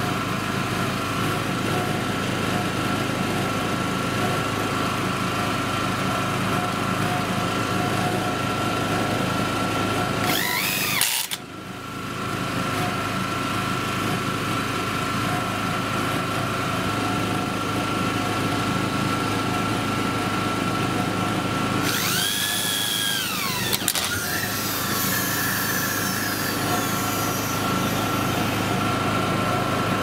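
Power drill driving screws to fix steel brackets to a timber post, over the steady run of a small generator. The drill motor whines up and winds back down about ten seconds in and again around twenty-two seconds in.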